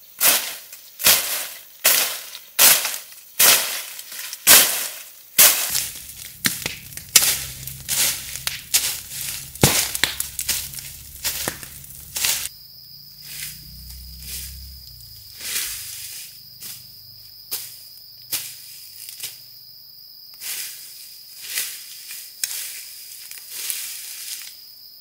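Wood being chopped with a blade: sharp strokes about twice a second, turning softer and slower after about six seconds. A steady high insect buzz comes in about halfway through.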